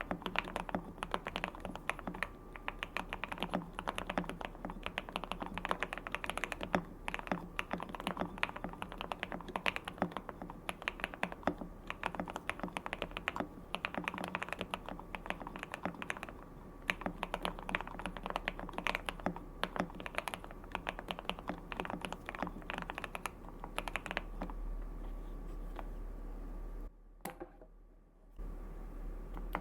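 Fast typing on a QK65 mechanical keyboard with lubed Banana Split switches on a POM plate, a dense run of key clicks. The typing thins out after about twenty-four seconds and drops out briefly near the end before picking up again.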